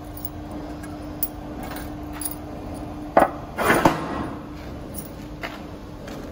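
Hydraulic stamping press with its pump running in a steady hum; a sharp metal clank about three seconds in, followed by a brief rattle of metal on metal.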